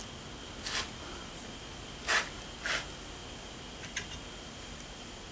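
Light handling noise: a few short scuffs and rustles, the loudest two about two seconds in, as gloved hands fit a bolt and washers onto a metal reed valve plate, over a faint steady hiss.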